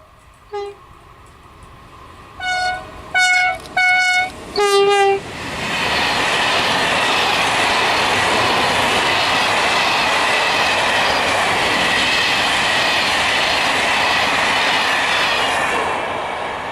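An E494 electric locomotive's horn gives a brief toot, then four short blasts, the last one lower-pitched. Then an intermodal freight train passes close by with a loud steady rolling rush and wheel clatter.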